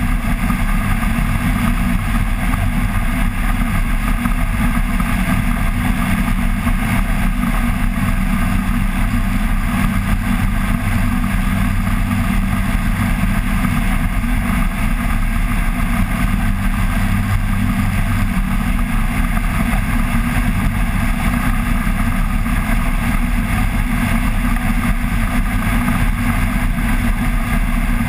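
Flex-wing microlight trike's engine and pusher propeller running at a steady cruise setting, a constant drone with air noise and no change in pitch.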